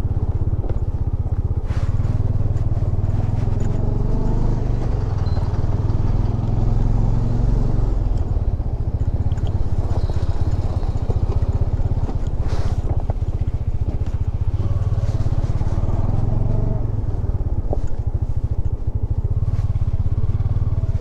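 Bajaj Dominar 400's single-cylinder engine running steadily as the motorcycle is ridden over a rough off-road track, with a few brief knocks.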